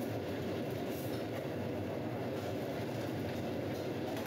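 Steady low roar of the gas wok burners in a commercial Chinese kitchen, holding at an even level throughout.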